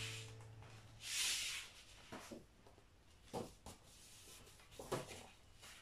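Quiet gap between two tracks on a vinyl record: a brief rustle about a second in, then a few faint, scattered clicks.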